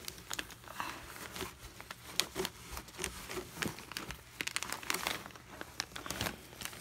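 Cardboard box flaps being pushed aside and a clear plastic bag of worm feed being handled inside the box. The plastic crinkles and the cardboard rustles, with many irregular crackles.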